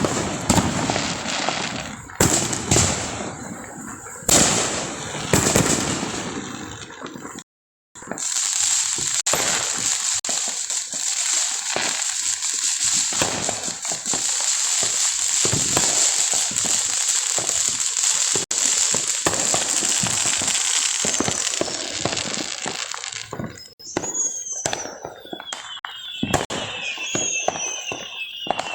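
Fireworks going off. There are several loud bangs in the first seconds, then, after a brief break in the sound, a long stretch of dense crackling, and near the end separate pops with a wavering whistle.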